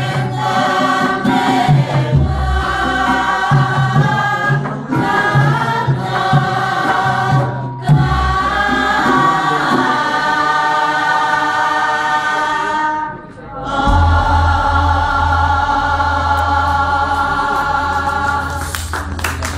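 A group of voices singing Javanese palaran, sung tembang verse, together with gamelan accompaniment. Deep gong strokes come in about every six seconds under the held sung notes, with a short break for breath about two-thirds of the way through.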